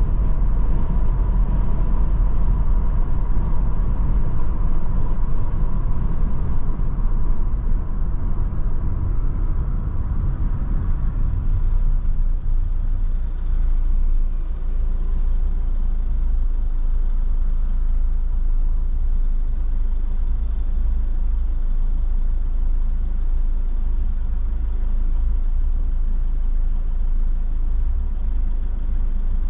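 Car interior noise of tyres and engine while driving. About twelve seconds in it eases off to a quieter, steady low engine hum as the car slows and waits at a traffic light.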